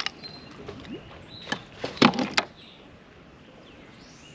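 Several sharp knocks and a short clatter, loudest about two seconds in, from a fish and gear being handled on a fishing kayak.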